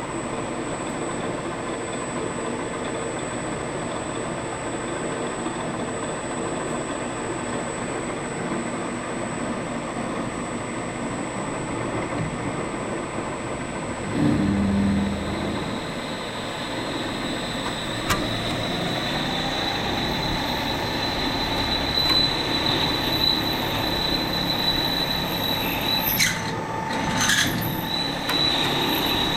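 Machine tool running and cutting aluminium, a steady mechanical noise with a thin high squeal. About a third of the way in there is a short louder low hum, and past the halfway mark a new whine rises in and holds to the end of the cut.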